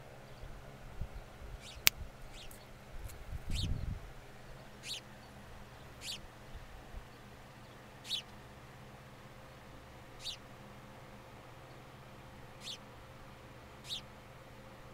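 House sparrow giving short single chirps, about nine of them, one every second or two. A sharp click near two seconds in and a brief low rumble just before four seconds.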